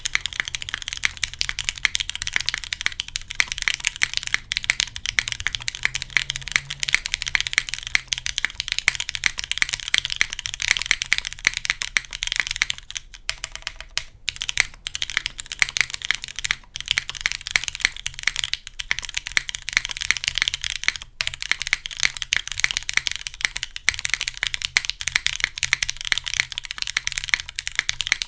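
Fast, continuous typing on an R3 Kalam Kyohaku mechanical keyboard: a gasket-mounted aluminium plate with lubed, retooled Cherry MX Black linear switches and GMK ABS keycaps. The keystrokes come densely, with a few brief pauses.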